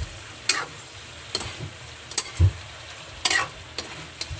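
Metal spatula scraping and knocking against a wok as shrimp are stirred in sauce, about six irregular strokes, one of them a low knock about halfway through. Under the strokes, the sauce sizzles steadily.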